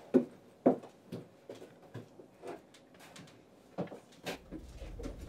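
Footsteps on the floor of a bus aisle: a few sharp steps about half a second apart, then fainter knocks, with a low rumble coming in near the end.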